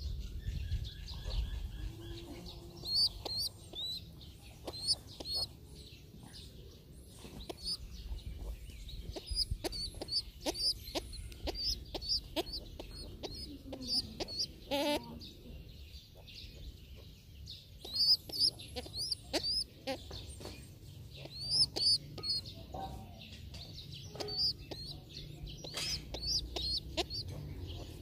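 Birds calling in a yard: many short, high chirps repeated throughout, with scattered sharp clicks and a low rumble underneath.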